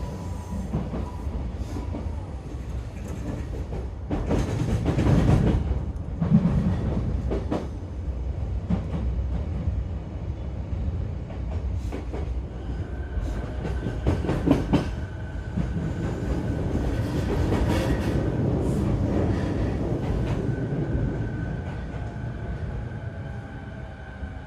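Onboard running sound of an E233 series 8000-subseries electric commuter train: a steady rumble with wheels knocking over rail joints, and the whine of its Mitsubishi IGBT VVVF inverter traction motors. A steady high tone comes in about halfway, and rising tones appear near the end.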